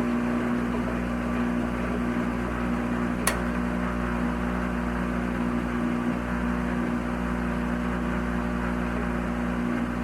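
Washing machine running with a steady motor hum and low rumble, with a single sharp click about three seconds in.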